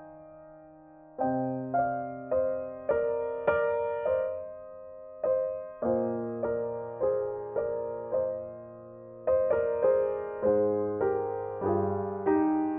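Background solo piano music: a slow, gentle melody of struck notes and chords, each note fading away, resuming after a held lull about a second in.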